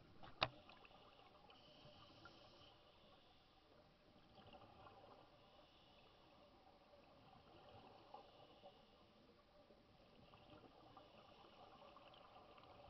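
Near silence: faint underwater hiss picked up through a camera housing, with one sharp click about half a second in.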